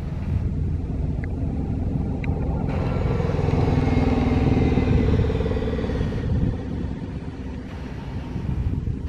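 City bus driving past close by: its engine note and tyre noise swell as it comes alongside, loudest a little past the middle, then fade as it pulls away.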